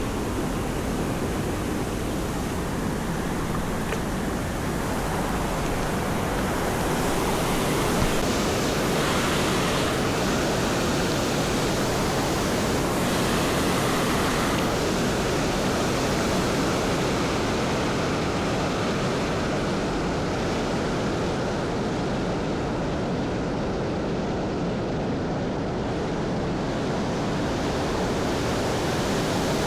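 Waterfall: water falling and rushing in a steady, even noise with no letup.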